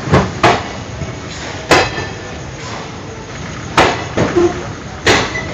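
Express train running through the station without stopping: a steady rush of noise broken by five sharp bangs, the first two close together near the start.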